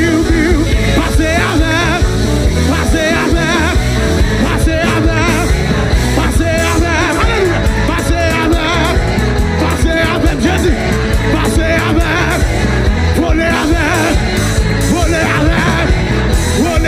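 Loud live worship music from a praise band, with a heavy bass line and voices singing over it.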